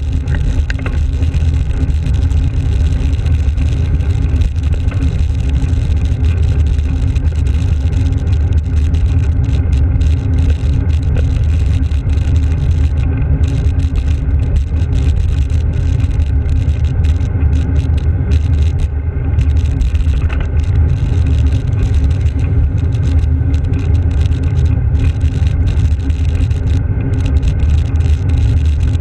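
Steady low rumble of wind and road vibration picked up by a handlebar-mounted GoPro Hero on a moving road bicycle, with car traffic on the road.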